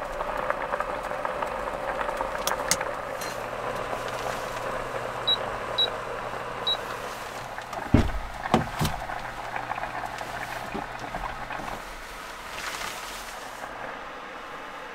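A pot of water boiling on a small portable cooktop, with a steady low hum under the bubbling. Three short electronic beeps come around the middle, and a few loud knocks about eight seconds in. The hum and most of the bubbling drop away near the end.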